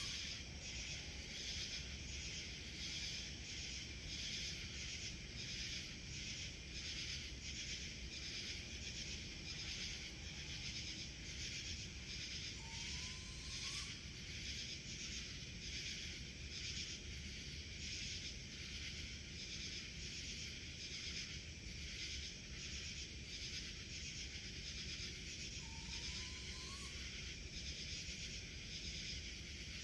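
A steady, pulsing chorus of high-pitched insect calls, with a short rising whistled note about a third of the way in and again near the end.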